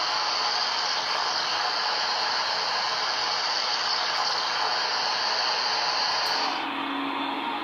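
Shortwave receiver static from a Kenwood TH-F6A handheld tuned near 2.05 MHz: an even hiss of band noise with no station audible. About six and a half seconds in, the hiss turns duller and a little quieter and a faint low hum comes in, as the audio switches to the SDRplay RSP2 receiver.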